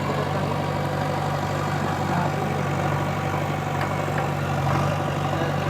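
Diesel engine idling steadily at low revs, with an even, unchanging note.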